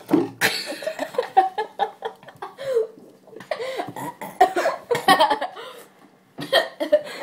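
Girls coughing and laughing in short, sharp bursts.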